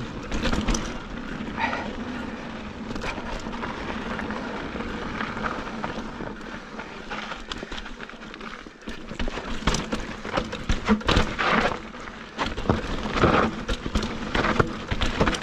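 Mountain bike riding over loose gravel and rock on desert singletrack: steady tyre crunch with frequent knocks and rattles from the bike over rocks, busier and louder from about nine seconds in.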